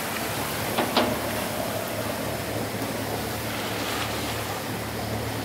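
Steady rush of wind and choppy sea water around a sailing yacht underway, with a constant low hum beneath it and a couple of short splashes or knocks about a second in.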